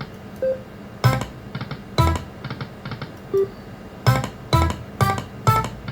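Lightning Link slot machine running a spin: a series of sharp electronic chimes as the reels land, about six of them, bunched near the end, over the game's music.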